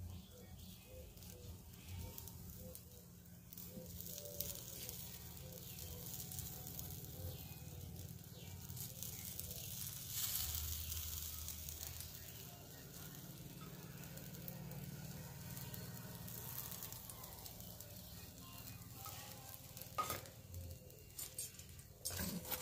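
Pork ribs sizzling on a wire grill over hot charcoal: a steady hiss that swells in the middle, with a few sharp clicks near the end.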